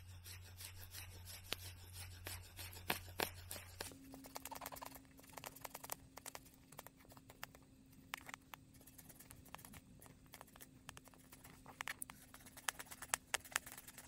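Small knife chopping red chili peppers on a cutting board: quick, irregular light taps, several a second, with a faint steady hum underneath that shifts to a higher pitch about four seconds in.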